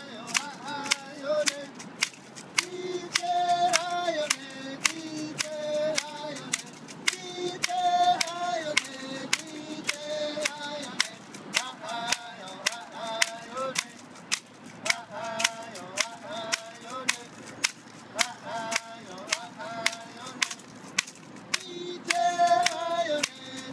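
Two men singing a chant together, accompanied by wooden clapper sticks struck in a steady beat of about two sharp clacks a second.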